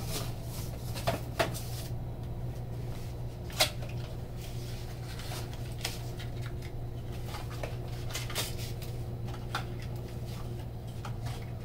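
A small cardboard box being pulled out and opened by hand: scattered rustles and light knocks of cardboard, one sharper knock a few seconds in, over a steady low hum.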